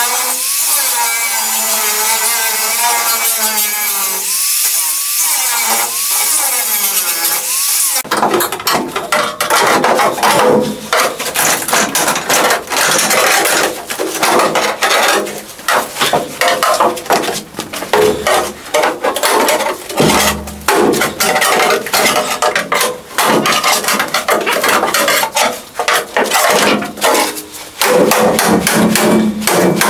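Angle grinder cutting into a rusted steel car floor pan, its whine dipping and rising as the disc bites. After about eight seconds it switches abruptly to an air chisel hammering through the sheet-metal floor in rapid bursts with short pauses.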